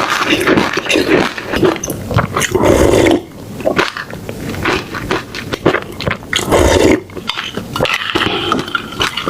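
Close-miked chewing and biting of food, in loud irregular bursts with sharp clicks.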